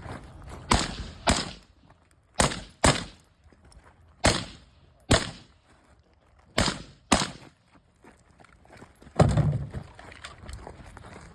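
Suppressed AR-15 rifle firing, mostly in quick pairs of shots about half a second apart, roughly nine shots in all. The loudest and longest shot comes about nine seconds in.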